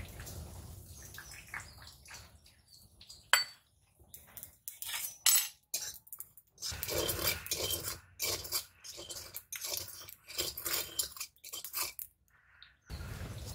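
Metal spatula scraping and clinking against the inside of a metal wok in short, irregular strokes, stirring poppy seeds as they dry-roast.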